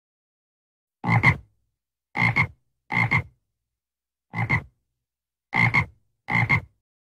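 An animal calling: six short calls, each a quick double pulse, spaced unevenly about a second apart, with silence between.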